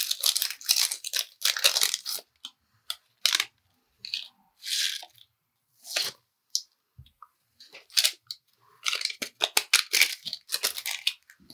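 A small packet of slime inclusions being torn open and crinkled in the hands, then shaken out over the slime, in short crackly spells that are busiest at the start and again near the end.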